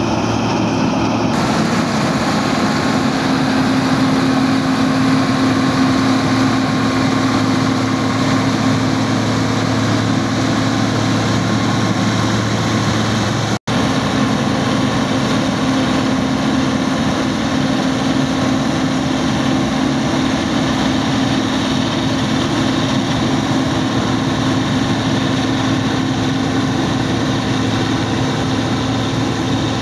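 8070 combine harvester running steadily under load while cutting rice, its engine and threshing machinery making an even hum. The sound drops out for an instant a little under halfway through.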